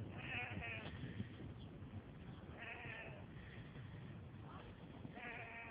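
Sheep bleating: three faint, quavering bleats about two and a half seconds apart.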